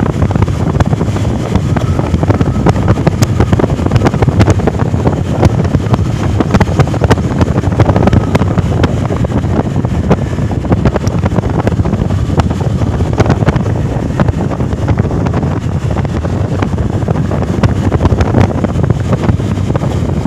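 Wind buffeting the microphone: a loud, steady rumble with dense crackling, unbroken throughout.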